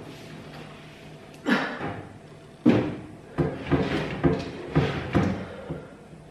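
A built-in microwave oven bumping and knocking against a kitchen cabinet niche as it is shoved in by hand, a string of about seven hollow thuds coming faster toward the end: the appliance is a tight fit in the space.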